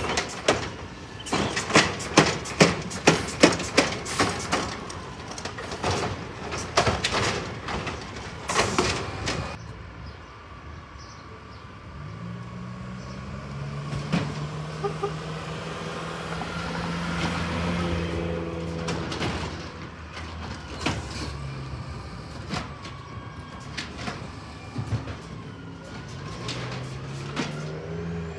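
Automated side-loader arm on a Burrtec Autocar garbage truck shaking a cart out into the hopper: a rapid run of sharp knocks, about two a second, for some nine seconds. After a short lull a garbage truck's diesel engine hums steadily as it drives up the street, rising in pitch near the end as it speeds up.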